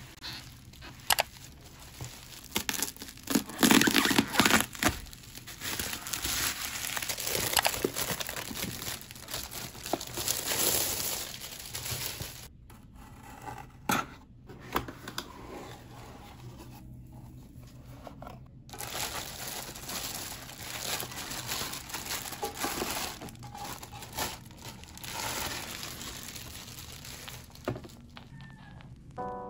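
Crinkling and tearing of a plastic bubble-wrap mailer being opened, then a cardboard box being handled and opened, with scattered taps and clicks. The loudest crinkling comes a few seconds in.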